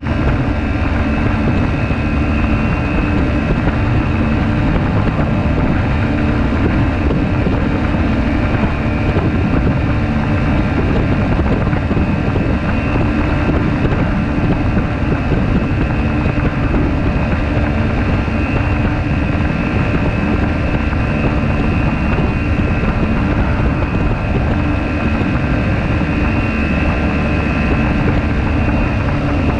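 Ultralight aircraft's pusher engine and propeller running steadily at cruise power, with wind rushing over the microphone.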